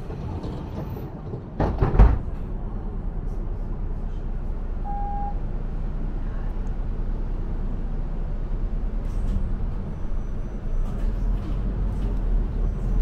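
Steady low rumble inside a moving city bus. A heavy thud about two seconds in is the loudest sound, and a short electronic beep follows around five seconds.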